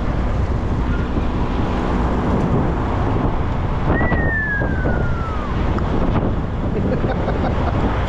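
Steady low rumble and wind noise on the deck of a sportfishing boat. About four seconds in, one thin whistle falls in pitch for about a second and a half.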